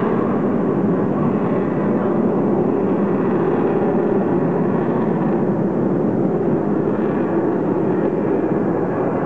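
AV-8B+ Harrier II's Rolls-Royce Pegasus vectored-thrust turbofan: a steady, loud jet noise as the jet flies slowly toward the listener.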